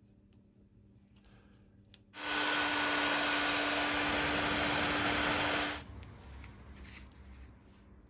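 Electric heat gun switched on about two seconds in, blowing steadily with a hum for about three and a half seconds, then switched off. It is shrinking a heat-shrink sleeve over a freshly soldered wire joint.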